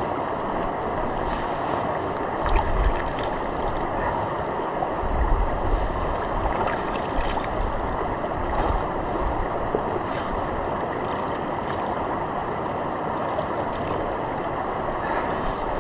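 Steady rushing of wind, with gusts buffeting the microphone now and then.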